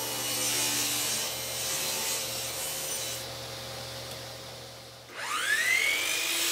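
A bench-mounted shop machine runs steadily while a small walnut spring blank is pushed along its fence through the cut, with scraping wood noise. About five seconds in, a sliding miter saw's motor starts and spins up with a rising whine.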